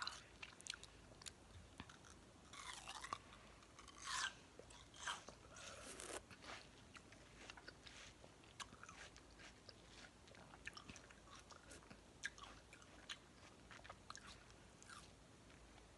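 Close-miked wet chewing of juicy watermelon: soft mouth clicks and smacks throughout, with a few louder, juicier bites or slurps in the first six seconds.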